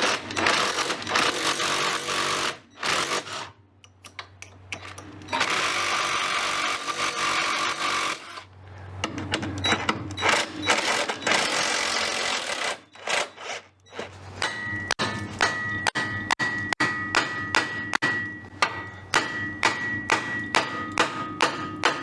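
Pneumatic impact wrench running in several long bursts, spinning off suspension bolts. This is followed by a steady run of sharp metallic blows, about two or three a second, with a ringing tone.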